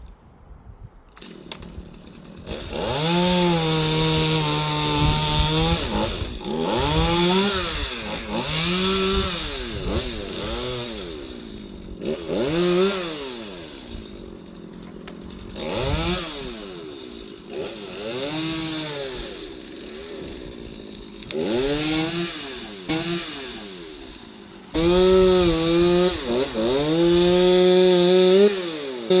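Gas chainsaw revving up and down over and over, the pitch rising and falling with each squeeze of the throttle. It is held at a steady high speed for a few seconds near the start and again near the end.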